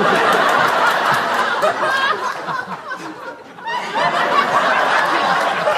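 Several people laughing at once, with overlapping chatter; the laughter dips about three seconds in and then swells again.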